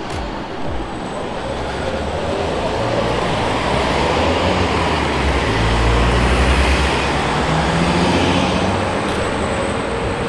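Road traffic noise, swelling to its loudest about six to seven seconds in and then easing off.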